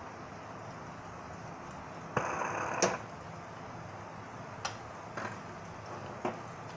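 Kitchen utensils being handled: a short scrape ending in a sharp clack about two seconds in, then three lighter knocks, over a steady low hiss.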